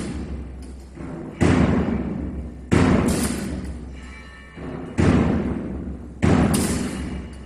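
Slow, heavy drum beats keeping a solemn marching pace, each one ringing out in the church's long echo. Four loud beats fall in uneven pairs, some led by a softer beat just before.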